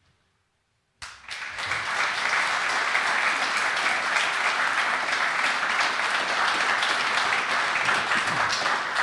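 Audience applauding in a large hall, the clapping starting suddenly about a second in after near silence and then holding steady.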